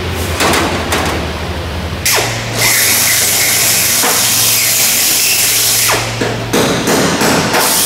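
Handheld power tool running steadily for about four seconds on a Lancaster bomber's aluminium fuselage skin, removing a damaged section of skin. Sharp knocks and taps on the metal come before and after it.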